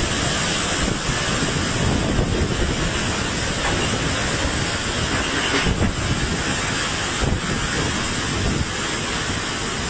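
Typhoon-force wind and driving rain: a loud, steady rushing noise, with gusts buffeting the microphone.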